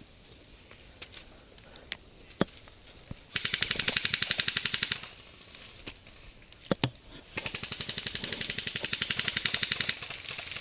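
Airsoft guns firing: two long full-auto bursts of rapid, evenly spaced shots, the first about a second and a half long and the second about two and a half seconds. A few sharp single cracks come before and between the bursts.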